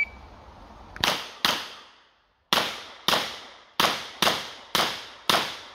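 Eight shots from a Smith & Wesson 929 revolver in 9x19 mm, fired in four quick pairs with short gaps between the pairs.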